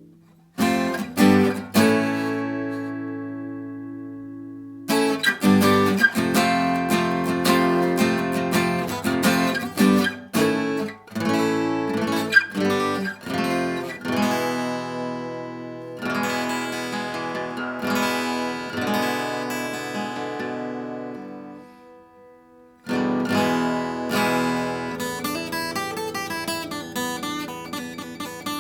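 Vintage K.Yairi DY-41 steel-string acoustic guitar with solid Honduras rosewood back and sides, strummed and picked. A chord is left to ring and die away, then a run of strummed chords follows, with a brief pause about three quarters of the way through before the playing starts again.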